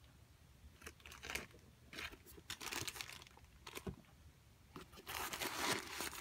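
Crinkling and rustling of the paper stuffing and wrapping as a new pair of sneakers is handled, in several short bursts, the longest and loudest near the end.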